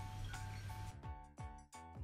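Faint background music with a short note repeating about three times a second.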